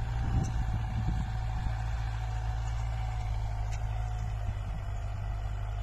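Kubota MU4501 tractor's four-cylinder diesel engine running steadily under load as it pulls a tine cultivator through the soil.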